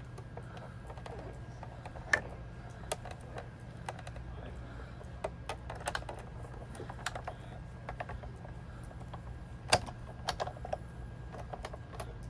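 Irregular clicks and taps of plastic cutting plates and card stock being handled and set in place on a Sizzix Big Shot die-cutting machine, with two sharper knocks, about two seconds in and near ten seconds. A low steady hum runs underneath.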